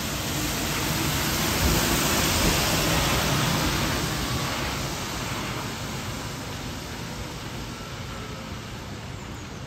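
Volvo 7900 Electric bus driving past on a wet road, a hiss of tyres on wet asphalt with little engine sound. The hiss swells to its loudest about two seconds in, then slowly fades as the bus moves away.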